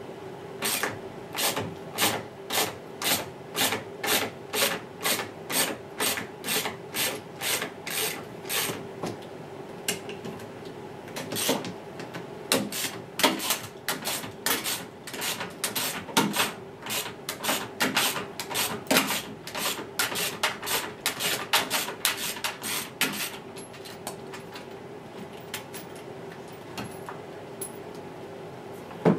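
Socket-wrench ratchet clicking as the 10 mm bolts holding a washing machine's drum counterweight are undone, in strokes of about two a second for the first nine seconds. Then a faster, more irregular run of strokes until about 23 seconds in, after which it goes much quieter.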